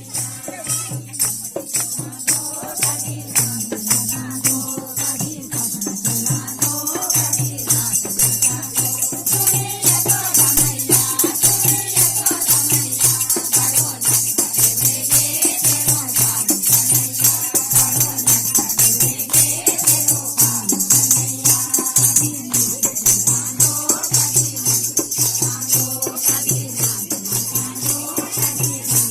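Bhajan kirtan music: voices singing a devotional song over a steady, fast beat, with shaken jingling or rattling percussion going on throughout.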